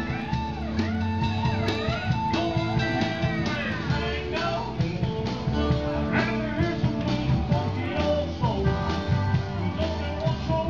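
Live rock-and-roll band music through PA speakers: electric guitar over a steady bass and drum beat, with singing.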